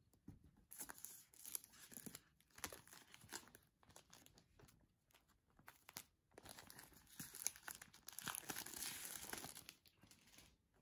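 Thin clear plastic shrink wrap being torn and peeled off a cardboard smartphone box, crinkling in two stretches, the second longer and louder.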